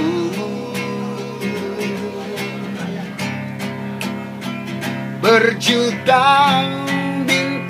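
Guitar strumming a slow accompaniment with sustained low chords between sung lines. A man's singing voice finishes a held note at the start and comes back in about five seconds in.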